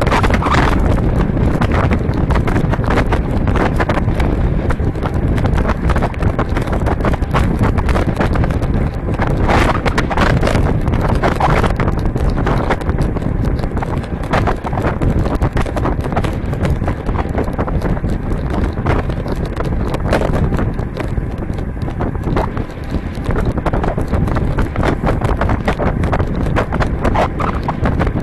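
Wind buffeting the microphone of a bike-mounted 360 action camera on a moving road bike, over a steady rumble of tyres on the road, with frequent small knocks and rattles.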